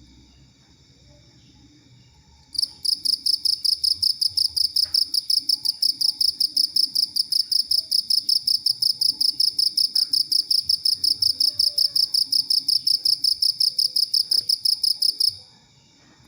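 Cricket chirping. About two and a half seconds in, a loud, high-pitched pulsed trill of roughly five pulses a second starts and runs until it stops abruptly near the end. Beneath it is a faint, steady high-pitched cricket song.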